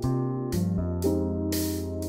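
Background music: sustained keyboard chords that change every half second or so, with a light hissing beat.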